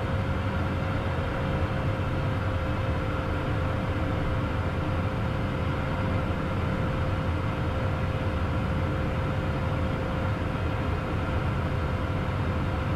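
Steady cockpit noise of a Beechcraft Premier 1A jet on final approach: airflow over the airframe and its twin turbofan engines, with a thin steady tone held above the noise.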